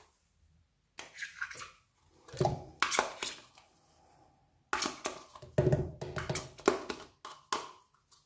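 Metal teaspoon scraping thick yogurt out of a plastic tub and knocking it off into a plastic jug: a string of short scrapes, squelches and taps, busiest in the second half.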